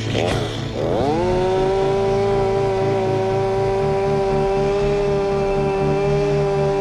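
Two-stroke chainsaw engine blipped a couple of times, then opened to full throttle about a second in and held at a steady high-pitched scream.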